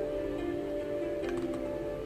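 Soft background music with sustained held notes, and a couple of computer keyboard keystrokes a little after a second in.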